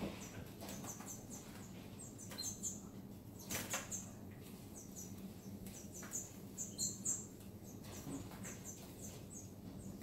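Caged canaries and finches giving short, high chirps again and again, with a few wing flutters and clicks as they hop between perches.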